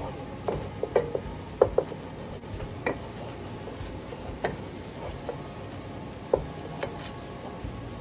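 Wooden spoon stirring a butter, garlic and flour roux in a pan, scraping and knocking irregularly against the pan, the knocks bunched in the first two seconds and sparser after, over a steady hiss.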